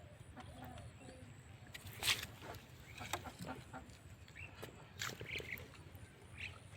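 Farmyard fowl calling in short clucks and chirps, with a sharp knock about two seconds in and another about five seconds in.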